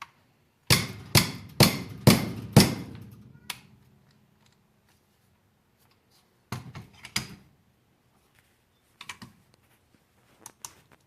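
Hammer-and-punch strikes on the stuck takedown pin of a polymer AR-15 lower receiver. Five sharp blows in quick succession, about two a second, then one more and a few lighter taps later on.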